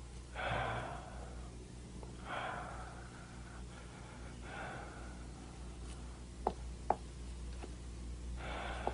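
A person's quiet sighs or breaths, four of them spaced a couple of seconds apart, over a steady low hum. Two short sharp clicks come close together about two-thirds of the way through.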